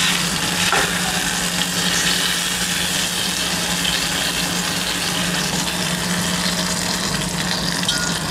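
Dried basmati rice tipped from a steel colander into hot ghee with whole spices, sizzling steadily as it fries.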